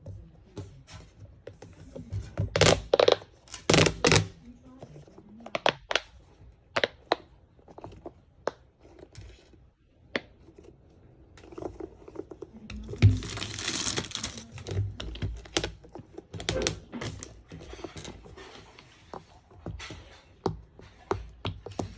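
Hands unboxing and handling a silicone squid suction-cup fidget toy: scattered sharp clicks, taps and small pops, with louder rustling or tearing of packaging a few seconds in and again midway.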